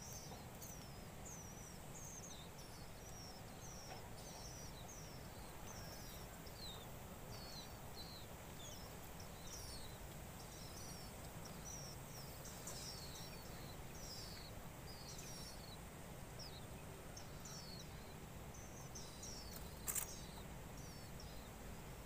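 Nestlings begging: a long run of thin, high, down-slurred cheeps, about two to three a second, over a low steady hum, with one sharp click near the end.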